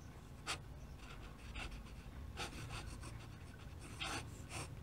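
Faint scratching of a fountain pen nib on paper, in short irregular strokes as a cursive signature is written, with a low steady hum underneath.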